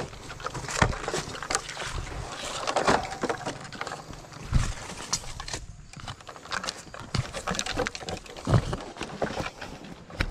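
Close handling noises of a large fish being tied with fishing line into a motorcycle's wire front basket: irregular rustling, scraping and clicking, with two dull thumps, one about four and a half seconds in and one about eight and a half seconds in.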